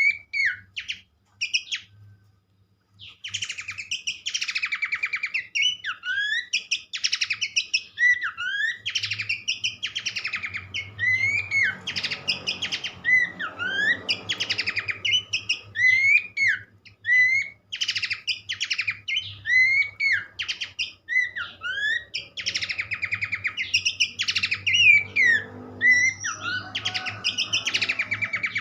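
Horsfield's babbler (pelanduk semak) singing continuously: busy, chattering phrases mixed with short slurred whistles, repeated about once a second, over a steady low hum.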